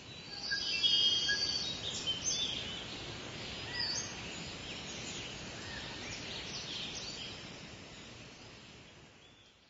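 Many small birds chirping and singing over a steady outdoor background hiss. It swells up in the first second and fades out towards the end.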